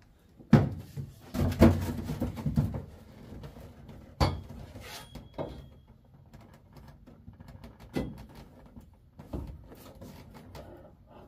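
Knocks, thumps and rustling as a bent roll-cage main hoop tube is worked into place inside a car's cabin. A sharp knock about four seconds in leaves a short metallic ring.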